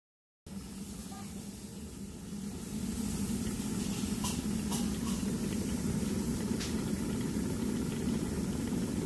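Plastic Philips electric kettle heating water toward the boil: a steady low rumble that starts suddenly about half a second in and grows louder about three seconds in, with a few faint ticks.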